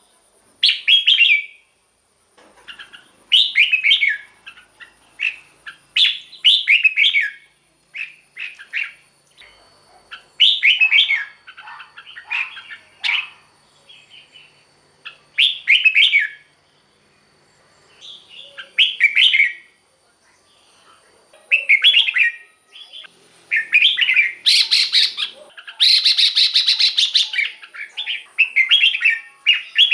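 Red-whiskered bulbul singing: short, loud warbling phrases of about a second each, repeated with brief pauses, turning into a longer, busier run of song near the end.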